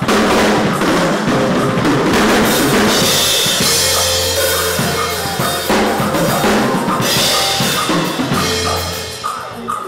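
Drum kit played hard in a dense passage of bass drum, snare and cymbals. It starts suddenly, with heavy cymbal washes about three seconds in and again near seven seconds, and eases off near the end.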